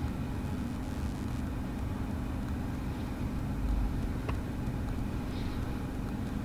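Cabin sound of a Tesla Model 3 reversing slowly into a parking space under Autopark: a low, steady rumble and hum, with a faint click about four seconds in.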